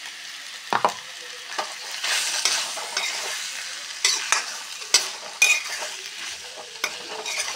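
Crushed green peas and potato pieces sizzling in oil in an iron kadhai, stirred with a metal spatula that scrapes and clinks against the pan several times.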